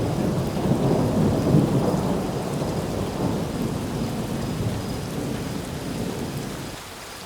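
Thunder rumbling over heavy rain, the rumble slowly fading and dying away near the end.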